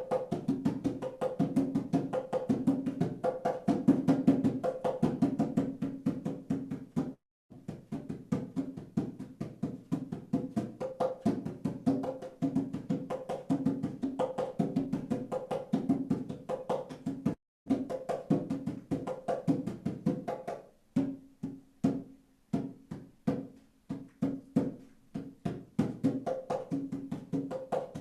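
Percussion music: a drum struck in a fast, even rhythm with a steady low tone. It cuts out briefly twice and becomes sparser in the later part.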